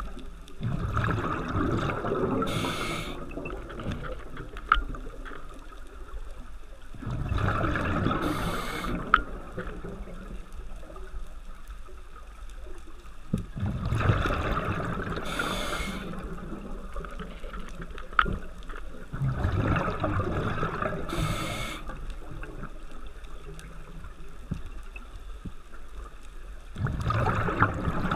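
Scuba diver breathing through a regulator underwater: a gush of exhaled bubbles about every six seconds, five breaths in all, each ending with a short high hiss.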